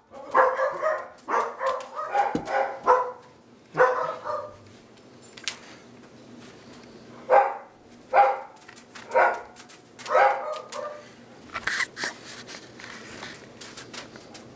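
A dog barking repeatedly, with short barks coming quickly in the first four seconds, a pause, then single barks about once a second.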